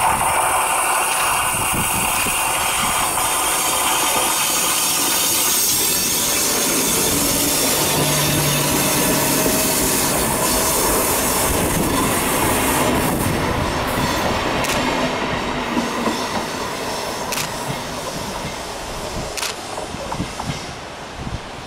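Red electric multiple-unit local train passing close and pulling away, its wheels rumbling and rattling on the rails. From about halfway the sound fades, leaving separate clicks of the wheels over rail joints as the train moves off.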